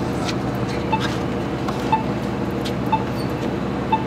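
A steady low hum with a short, sharp beep or tick about once a second, evenly spaced like a clock.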